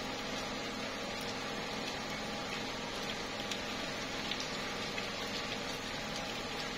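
Slow, steady rain falling on tree leaves: an even hiss with scattered drop ticks.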